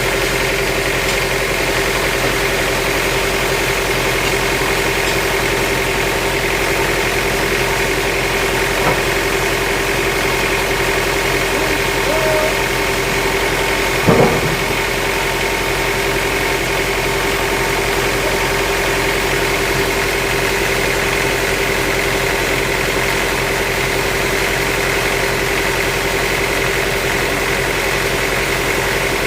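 An engine idling steadily with an even drone, with a single sharp knock about halfway through.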